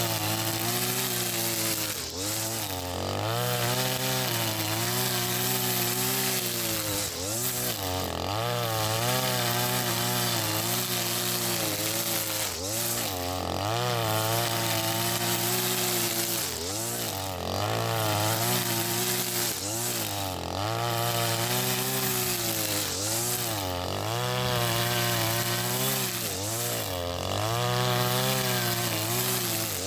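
Husqvarna 542RBS 42cc two-stroke brush cutter running at high speed, spinning square nylon trimmer line through grass. The engine pitch dips and recovers every few seconds as the line takes load.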